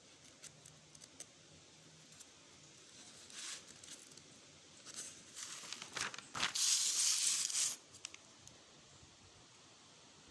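Crinkling and rustling handling noise in a few short bursts, the loudest lasting about a second past the middle.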